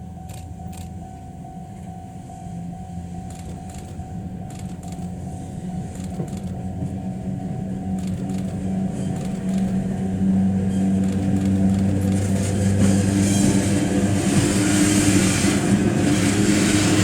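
Model freight train hauled by model ED71 electric locomotives running toward the microphone: a steady motor hum with a few light clicks from the wheels on the track, growing steadily louder.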